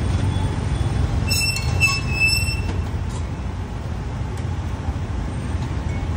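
Steady low rumble of street traffic, with a high-pitched metallic squeal of about a second and a half starting just over a second in.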